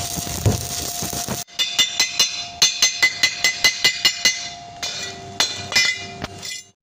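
Stick-welding arc from a homemade arc welder crackling steadily for about a second and a half, then cutting off suddenly. A chipping hammer then taps rapidly on the fresh weld bead to knock off the slag, each blow ringing on the steel, with a few slower taps near the end.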